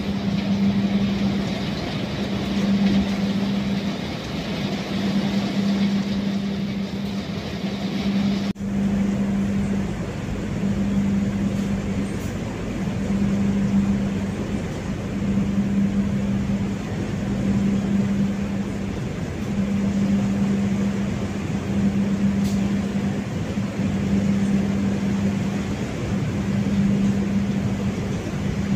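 Moving passenger train heard from inside the carriage: a steady rumble and hiss with a low hum that swells and fades about every one and a half seconds. About eight and a half seconds in, the upper hiss drops away suddenly.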